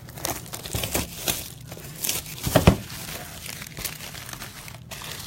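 Plastic wrapping crinkling and tearing in a run of irregular sharp rustles, the loudest about two and a half seconds in: a trading-card box or pack being unwrapped.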